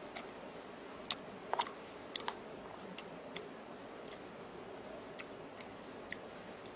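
Wooden spoon stirring food in an aluminium Trangia mess tin, with scattered light clicks and scrapes as the spoon knocks against the tin.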